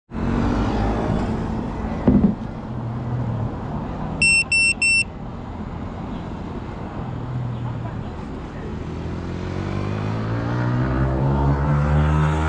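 A GEPRC Mark 5 FPV quadcopter on the ground gives three short, high electronic beeps about four seconds in, over steady outdoor background noise, after a thump about two seconds in. Near the end a hum of several pitches rises and grows louder as the motors spin up.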